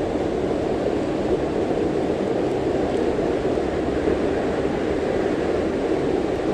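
Steady rushing of river water, an even wash of noise with no breaks.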